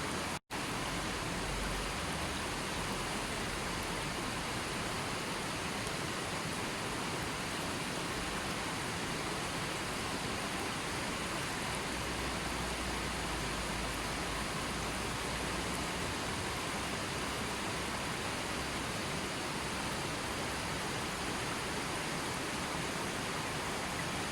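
Steady rushing water from a nature recording, an even hiss with no clear rhythm or separate drops. It cuts out to silence for a split second about half a second in, then carries on unchanged.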